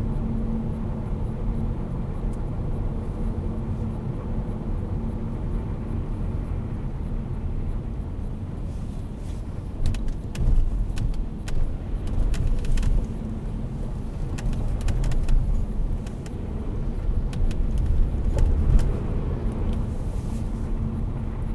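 Cabin sound of a Saab 9-5's 2.3-litre turbo four-cylinder driving slowly, with a steady engine hum and tyre rumble on the wet road. The rumble swells twice, in the middle and near the end, and a scatter of light clicks comes in the middle.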